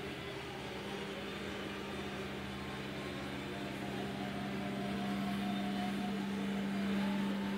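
Engine of a walnut harvesting machine running steadily, a constant hum that grows slightly louder toward the end as the machine works through the orchard.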